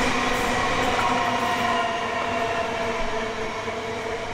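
High Capacity Metro Train, a new electric suburban train, passing with a steady whine over rail and wheel noise, fading as its last car goes by.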